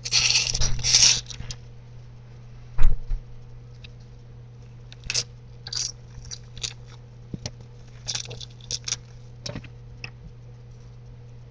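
Dry, papery onion skin being peeled off by hand on a plastic cutting board, crackling and rustling for about the first second and a half. About three seconds in comes a single sharp knock on the board, then scattered small rustles and taps of the peel being handled.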